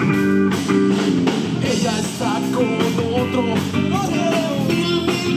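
Live rock band playing: electric guitar chords, bass and drum kit, with a man singing from about two seconds in.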